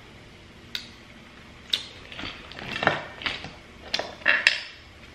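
Crab leg shells being cracked and snapped open by hand: a series of sharp cracks and crunchy clicks, loudest about three seconds in and again near the end.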